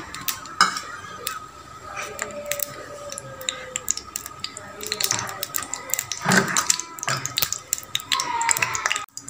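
Scattered clinks and knocks of metal kitchenware, with a thin steady tone in the background.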